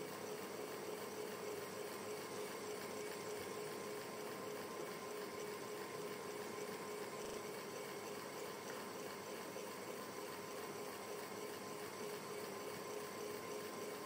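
Ceiling fan running steadily: an even hiss of moving air with a faint steady hum.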